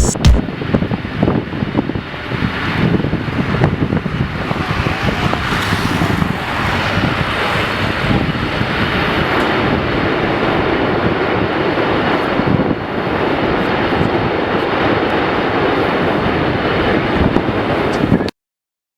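Jet airliner engines running, a steady rushing noise that grows a little louder and then cuts off abruptly near the end.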